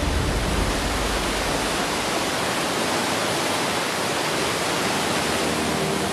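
Fast-flowing underground river rushing steadily over rocks.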